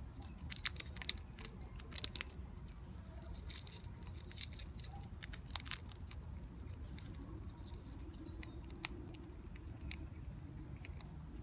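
Black squirrel gnawing and cracking open a peanut shell at close range: a run of sharp crunching clicks, thickest in the first couple of seconds and again around six seconds in, thinning to scattered small clicks later.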